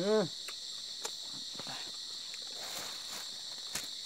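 A steady chorus of insects chirring in a constant high band, with a few scattered soft clicks and steps.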